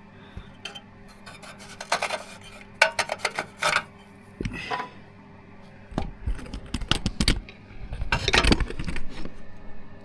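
Metal tools and parts clinking and knocking in irregular clusters while a gear shift shaft seal is worked into place on a motorcycle engine, ending with the seal seated.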